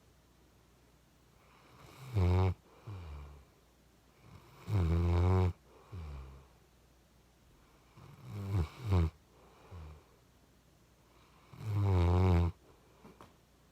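Chocolate Labrador puppy snoring in its sleep: four loud snores about three seconds apart, each followed by a softer breath.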